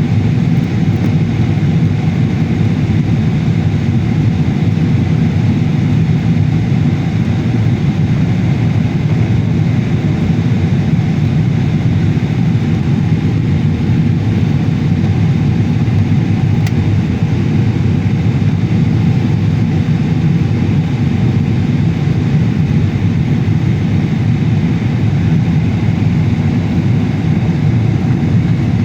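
Steady drone of a jet airliner's engines and airflow, even and unchanging throughout.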